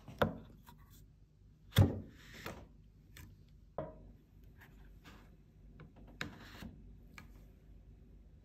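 Wooden parts of a mitered half-lap joint being fitted together: a few wood-on-wood knocks, the loudest about two seconds in, with light clicks and a short stretch of wood rubbing against wood.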